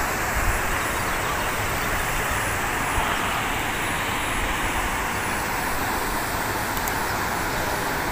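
Steady noise of road traffic, an even rush with a low rumble underneath.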